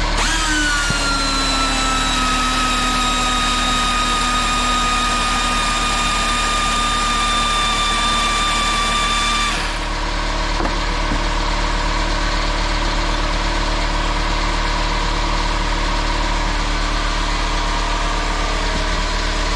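Pneumatic angle grinder running under a heat-up torture test, a high whine that sags slightly in pitch and cuts off about halfway through. A steady mechanical hum and air hiss carry on underneath.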